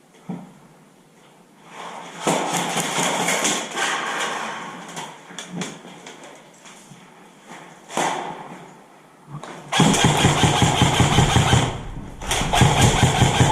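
Airsoft guns firing in rapid bursts, a fast buzzing rattle of shots. There are two main volleys, one starting about two seconds in and a louder, heavier one from about ten seconds in.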